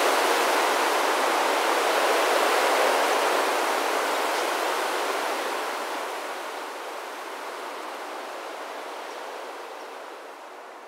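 Rushing hiss of the wings of a huge flock of common starlings in a murmuration, dense and even, fading gradually from about halfway through as the flock draws away.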